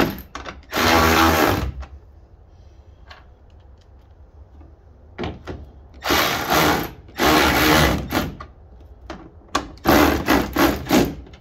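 Cordless power driver whirring in short bursts as it drives the 8 mm hex screws that hold a taillight housing to a pickup's bed: one run near the start, two longer runs in the middle, then a quick series of short pulses near the end as the screws seat.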